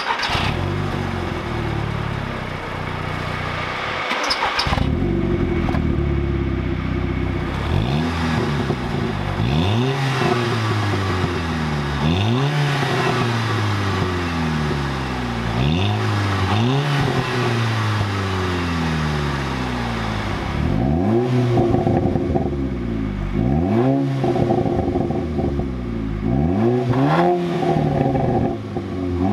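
Mk5 VW Golf GTI's 2.0-litre turbocharged four-cylinder idling and revved over and over, each rev rising and falling. It is heard first through the stock exhaust. About two-thirds of the way in it is heard through a newly fitted non-resonated Cobra Sport 3-inch stainless steel catback, somewhat louder.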